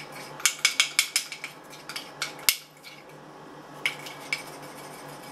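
A spoon clinking against the side of a small bowl while stirring food dye into powdered-sugar icing. A quick run of clinks comes in the first half, then a pause and two more clinks about four seconds in.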